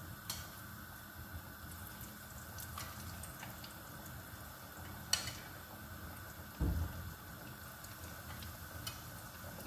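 Chicken nuggets frying in a pot of oil, a steady bubbling sizzle, with light clicks of a slotted spatula against the pot and plate. A sharper click about five seconds in and a dull thump a moment later.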